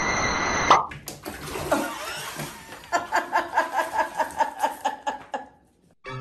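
Water rushing into a bathtub. A person laughs over it in quick repeated bursts in the second half, and the sound cuts off shortly before the end.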